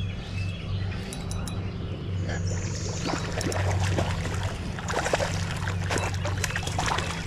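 Water splashing and rustling handling noise as a hooked rainbow trout is played in toward the net, denser in the second half, over a steady low rumble.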